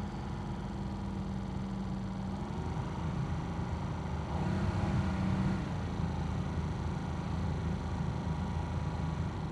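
Toyota Sequoia's HVAC blower motor running with a clicking noise, over a steady low hum; the rush of air swells about four seconds in and eases back about two seconds later.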